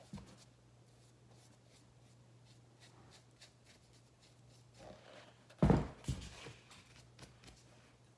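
Handling noise while a cleat is being painted with a small brush: faint rustles and light ticks over a steady low hum, then a sharp knock about five and a half seconds in and a few smaller knocks after it.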